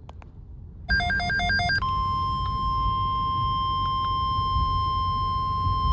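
Emergency alert tones from a NOAA Weather Radio broadcast. About a second in comes a brief warbling burst of digital data tones, followed by the steady single-pitch 1050 Hz warning alarm tone that announces a new weather alert.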